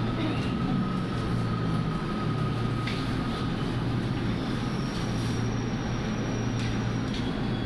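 LRT Line 2 train heard from inside the car as it pulls into a station and comes to a stop: a steady rumble and hum. A thin whine fades out in the first few seconds, and a higher thin whine comes in about five seconds in.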